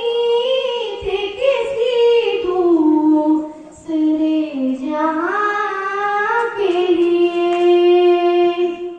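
A girl singing solo into a microphone, in long held notes that glide between pitches, with a short pause for breath about four seconds in.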